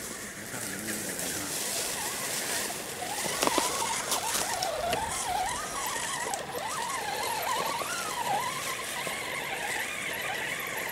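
Electric motor and gears of a radio-controlled rock crawler whining, the pitch rising and falling with the throttle as it crawls over a log, over a steadier, higher whine. A couple of sharp knocks about three and a half and four seconds in.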